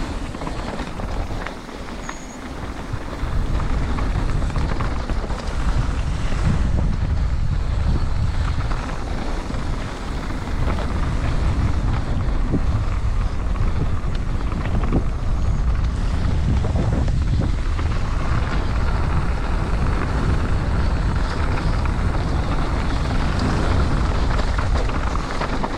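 Heavy wind noise on the microphone of a camera riding a downhill mountain bike, with a steady low rumble and many small clicks and rattles from the bike over the trail. It is a little quieter for a couple of seconds near the start.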